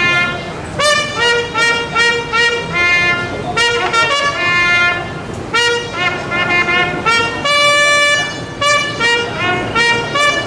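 Military bugle sounding a call: quick groups of short repeated notes, with one longer held note about seven and a half seconds in.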